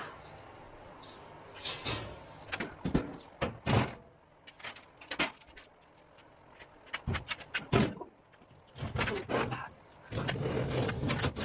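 A run of irregular clunks and knocks, some sharp, with a steady low hum under them near the start and again near the end.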